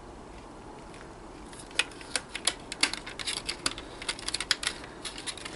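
Clear plastic packaging tray crackling and clicking as it is handled and flexed in the hands. An irregular run of sharp clicks starts about two seconds in.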